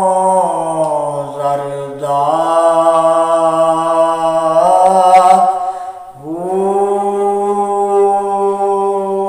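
A man singing a Punjabi Sufi devotional kalam unaccompanied, in long drawn-out held notes. His voice dips in pitch and climbs again, breaks off briefly about six seconds in, then comes back on a long steady note.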